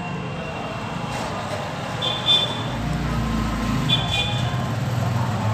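Steady background road-traffic noise with a low rumble, and two short high-pitched toots about two seconds apart.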